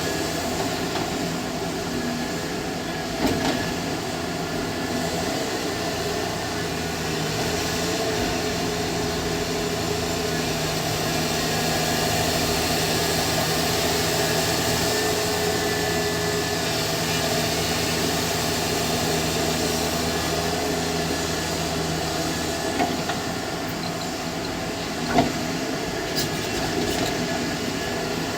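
Diesel engines of a Volvo excavator and dump truck running steadily while loading soil, with a few sharp knocks, the loudest about three-quarters of the way through.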